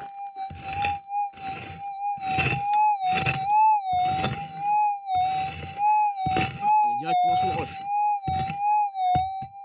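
A pick chopping into hard, stony soil about once a second. Under the blows, a metal detector lying on the ground gives a steady hum whose pitch wavers; the detector is still signalling the target being dug out.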